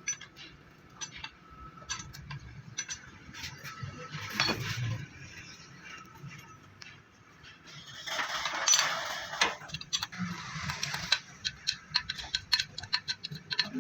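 Metal parts and hand tools clinking in a workshop: scattered sharp clicks and clinks, a denser noisy stretch of handling about eight seconds in, and quick ticking taps near the end.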